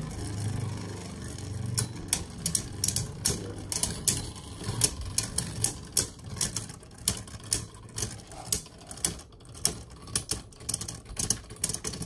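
Two Beyblade Burst tops, Vanish Fafnir and Choz Valkyrie, clashing as they spin together in a plastic stadium: rapid, irregular sharp clacks as the tops knock and grind against each other. The clacking stops near the end as both tops spin out.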